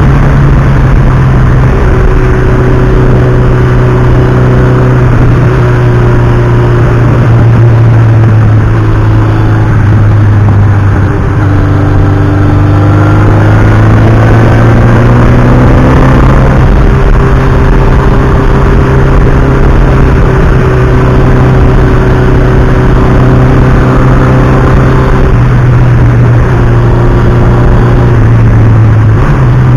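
Motorcycle engine running loud and steady under way. About eleven seconds in the revs dip, then climb for a few seconds before settling back to an even drone.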